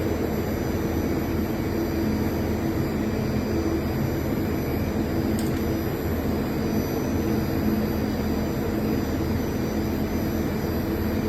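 Emerson 40 kVA online UPS running after its repair: cooling fans whirring steadily over a low electrical hum, with faint high steady tones.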